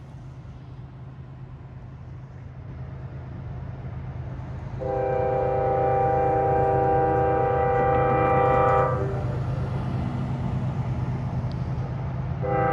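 Approaching CSX freight train led by GE ES44AH and ET44AH diesel locomotives: a low engine rumble that grows steadily louder. About five seconds in, the lead locomotive's multi-chime air horn sounds one long blast of about four seconds, and a second blast begins near the end.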